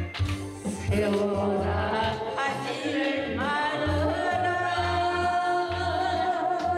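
An older woman singing a Korean trot song into a karaoke microphone over a karaoke backing track with a steady bass beat, holding one long wavering note through the second half.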